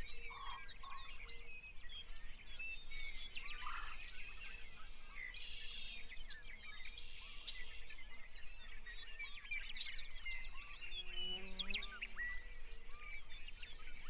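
Background nature ambience of many small birds chirping and twittering, short overlapping calls scattered throughout, over a faint steady low hum.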